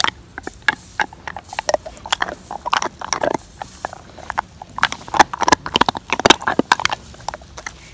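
Bernese mountain dog, very close to the microphone, chewing and mouthing at grass: a fast, irregular run of short crunches and smacks.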